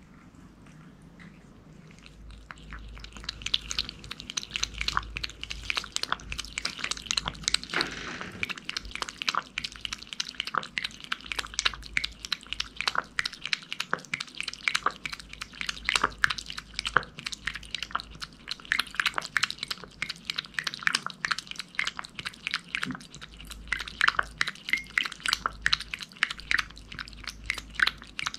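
A cat lapping a soupy puree snack from a ceramic bowl: a quick, steady run of wet licking clicks, starting about three seconds in.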